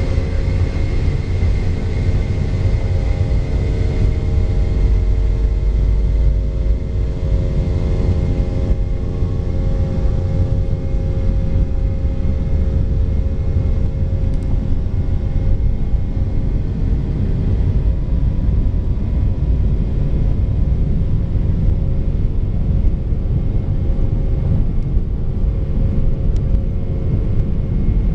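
Cabin noise inside a Boeing 717 taxiing: a steady low rumble from the rolling airliner, with the whine of its rear-mounted Rolls-Royce BR715 turbofans at low thrust. The whine fades in the middle and grows again near the end.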